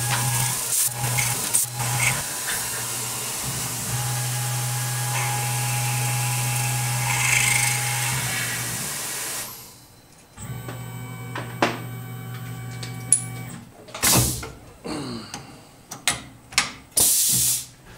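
CNC mill drilling a steel bar under flood coolant: a steady spray hiss over the low drone of the spindle. About halfway through the coolant cuts off, leaving the spindle and axis motors humming with a few steady tones, then a few short loud bursts of noise near the end.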